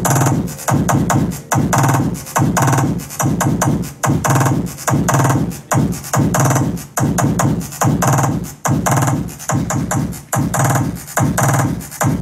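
Brazilian funk (pancadão) music with a heavy, steady bass beat and chopped vocal samples.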